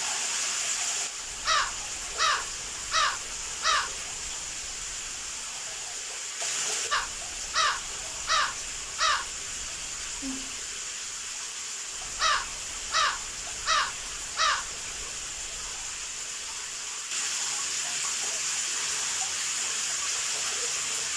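Three sets of four harsh, crow-like caws, evenly spaced, over a steady hiss of running water.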